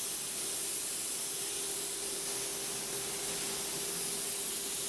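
Steady hiss, strongest in the high end, with a faint steady hum underneath.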